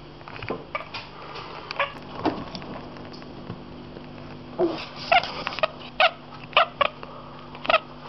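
Domestic cat chattering at seagulls seen through a window: short, clipped chirps, a few scattered at first, then a quick run of about nine in the second half.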